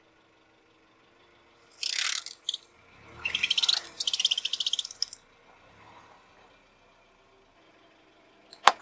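Small plastic bottles of liquid bursting under a slowly rolling car tyre: a short hissing squirt about two seconds in, then about two seconds of crackling plastic and spraying liquid. A sharp crack of plastic comes at the very end.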